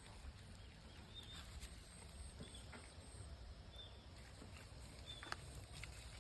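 Faint, quiet outdoor background with a low rumble, a few brief high chirps spaced a second or so apart, and a small click near the end.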